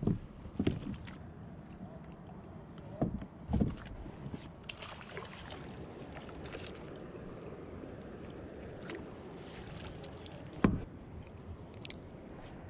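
Water sloshing around a NuCanoe F10 fishing kayak as a landing net is worked in the water beside it, with several sharp knocks of gear against the hull, the loudest near the end.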